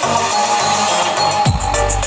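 Loud electronic dance music played through a large outdoor sound system. The deep bass drops out and returns with a heavy kick about one and a half seconds in.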